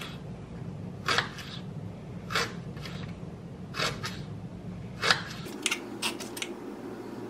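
Chef's knife slicing through rhubarb stalks onto a cutting board: a sharp chop about every second and a quarter, then several quicker chops near the end, over a steady low background hum.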